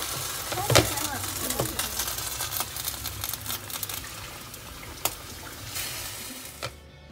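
Soy sauce chicken legs simmering and sizzling in a covered frying pan, a steady crackling hiss. The glass lid is lifted off and set back on, with a sharp clink about five seconds in and another just before the end.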